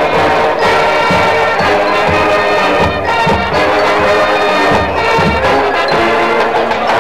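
High school marching band playing, with brass holding sustained chords over repeated low drum beats.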